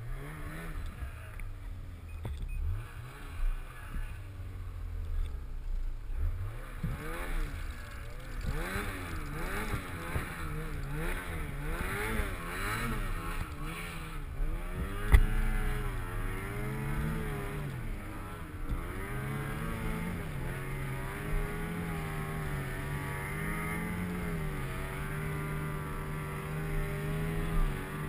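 Snowmobile engine running under varying throttle, its pitch rising and falling again and again as it revs up and eases off. There is one sharp knock about halfway through.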